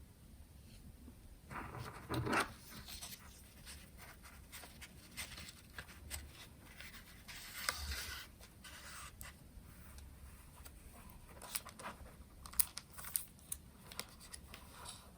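Irregular scratchy rustling and small clicks, with a louder rustle about two seconds in and sharp clicks near the end.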